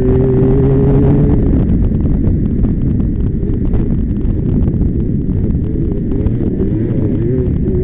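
250 racing quad's engine running at a steady high pitch, turning rough and uneven about a second and a half in as the quad goes through a turn, with its steady pitch coming back near the end. Wind buffets the helmet-mounted microphone.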